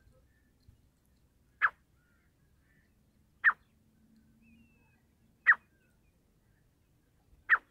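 Caged decoy francolin (teetar) giving a single short, sharp call about every two seconds, four times.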